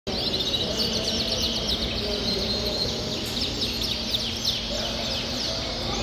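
Many caged Yorkshire canaries chirping and singing at once, a dense, overlapping chatter of quick, high falling notes.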